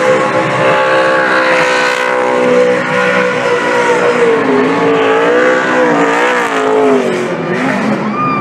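NASCAR stock car's V8 engine held at high revs during a victory burnout, its pitch steady at first, then swinging up and down through the middle as the throttle is worked, with tyre noise beneath.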